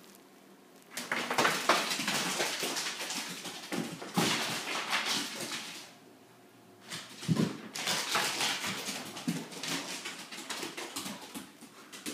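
A puppy scrabbling and pattering on a hardwood floor as she runs and plays with a stuffed toy: a rapid jumble of claw clicks and scuffles in two spells of a few seconds each, with a short quiet gap between them.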